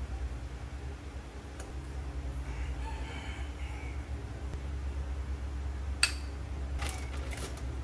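A rooster crows faintly about two and a half seconds in, over a steady low hum. About six seconds in a metal spoon clinks sharply, followed by a few lighter clicks as corn is spooned from a plastic tub.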